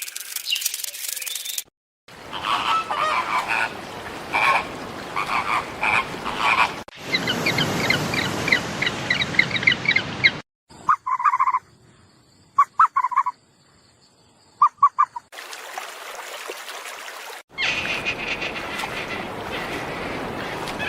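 Several short recordings of animal calls joined one after another with abrupt cuts, each with a different mix of repeated chirps or short calls over background noise.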